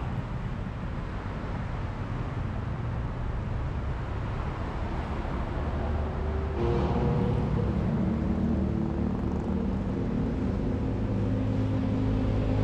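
Road traffic passing below: a steady low rumble of vehicles, with a louder engine hum from a heavier vehicle coming in about six and a half seconds in and holding on.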